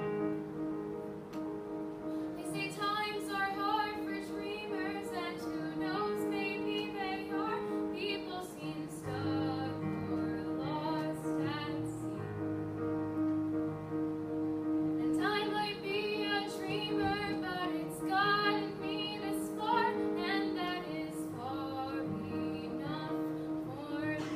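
A teenage girl singing solo over sustained chords of instrumental accompaniment. The chords sound first and her voice comes in about two seconds in, breaks off briefly around the middle, then carries on.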